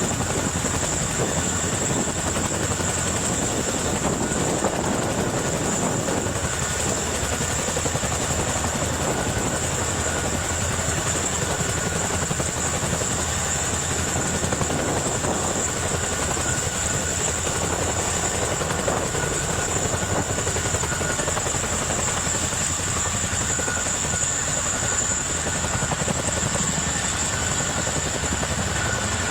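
A helicopter running steadily, a continuous drone with a high, unchanging whine over it.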